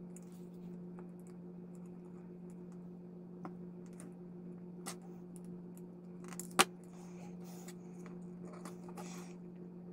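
Small clicks and light rattles of a plastic model engine and thin wire being handled and fitted, with one sharp click about two-thirds of the way through, over a steady low hum.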